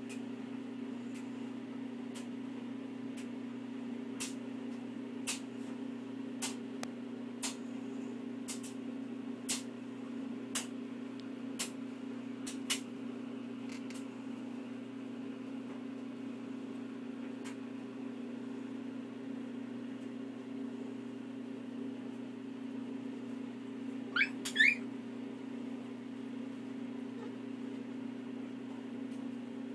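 Puppies giving a brief burst of high squeaks about three-quarters of the way through, each squeak rising in pitch. Under it runs a steady low hum, and for the first dozen seconds a sharp tick sounds about once a second.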